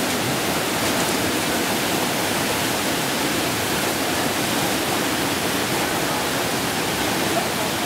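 Muddy flash-flood torrent rushing steadily across a wadi road.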